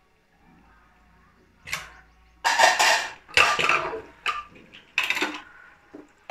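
Aluminium pressure cooker lid being twisted free and lifted off the pot, metal scraping and clattering against the rim in about six short bursts, starting under two seconds in.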